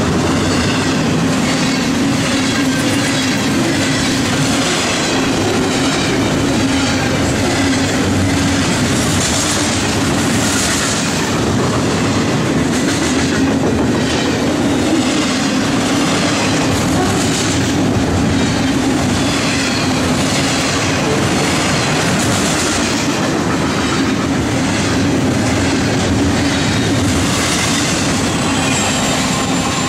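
Double-stack container cars of a freight train rolling past close by: a loud, steady rumble of steel wheels on rail, with repeated clicking as the wheels pass over rail joints.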